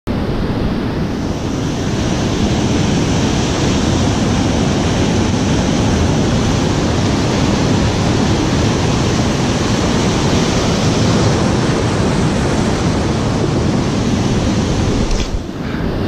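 Heavy ocean surf breaking and washing over shoreline rocks: a loud, steady rush of water with wind on the microphone. The rush briefly drops away near the end.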